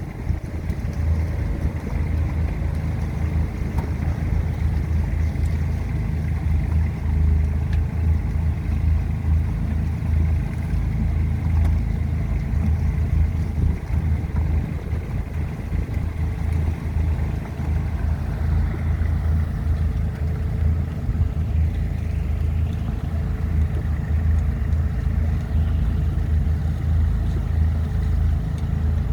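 Engine of an orchard harvesting machine running steadily, a continuous low rumble.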